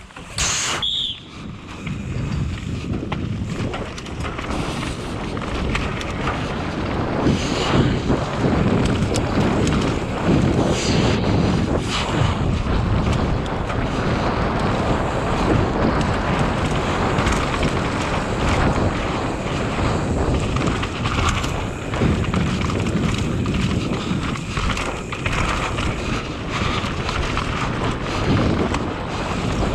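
Wind buffeting the microphone of a camera carried on a downhill mountain bike at speed, over the noise of the tyres and the bike rattling across rough ground, with sharp knocks from bumps now and then.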